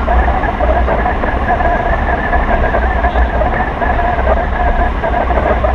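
Wind rushing over a wing-mounted camera's microphone as a hang glider flies: a loud, steady buffeting rumble with a steady whistling tone on top.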